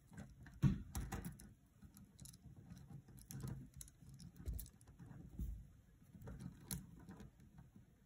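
Plastic pony beads clicking and rattling faintly against each other as a beaded cuff is handled, in scattered small irregular clicks.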